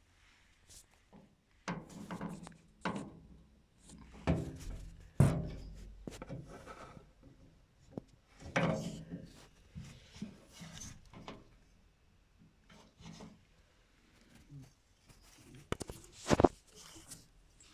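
Handling noises from a Whirlpool FL 5065 washing machine fitted with modified shock absorbers: irregular knocks, thuds and rubbing. The loudest are a sharp knock about five seconds in and another pair around sixteen seconds.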